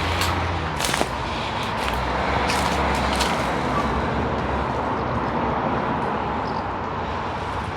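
Road traffic passing, a steady rushing noise with a low rumble that swells and then eases off, with a few light clicks over it.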